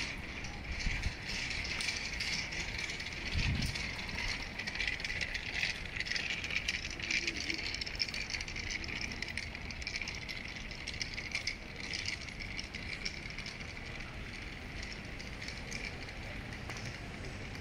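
City street ambience with a continuous fine rattling and ticking, busiest in the first half and easing off towards the end.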